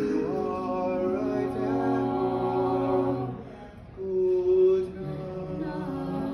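Small mixed a cappella group of men and women singing in close harmony, holding sustained chords over a low bass note. About three and a half seconds in they drop off briefly for a breath, then come back in louder on a new held chord.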